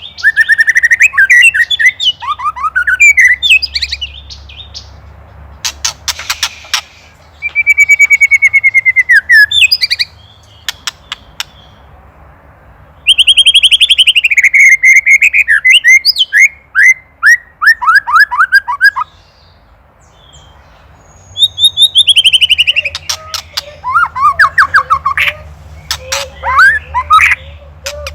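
White-rumped shama singing in loud bursts: phrases of clear whistled notes, quick runs of falling notes and fast clicking rattles, with short pauses between phrases. The rattling is the shama's agitated ketrekan, the call it gives at a predator.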